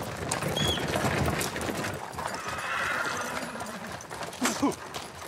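Carriage horses on a gravel road, hooves clopping, and a horse whinnying briefly near the end.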